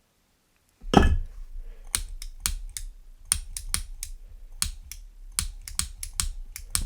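A thump, then a run of sharp irregular clicks from a Zippo lighter fitted with a butane torch insert, about two or three a second, over a low steady rumble.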